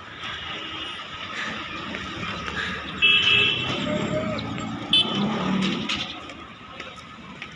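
Outdoor traffic noise with a car driving by, and two short, loud, high-pitched blasts, the first about three seconds in and the second about two seconds later.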